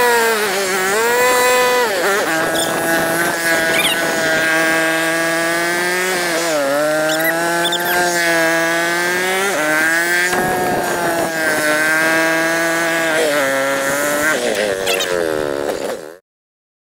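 FPV quadcopter's brushless motors and propellers whining, the pitch rising and falling with the throttle. The sound cuts off suddenly near the end.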